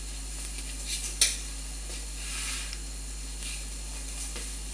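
Small handling noises from hands working around the printer: a sharp click about a second in, fainter ticks and soft rustling, over a steady low electrical hum.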